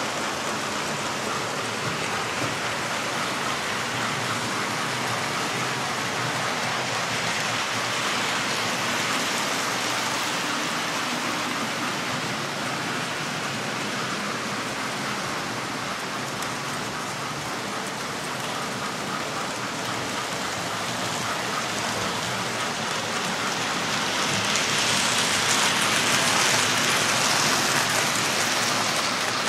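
Model trains running on the layout's track: a steady rushing rattle of wheels and motors on the rails, swelling near the end as a train runs close by.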